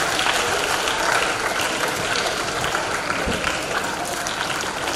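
An audience applauding, a steady clapping of many hands.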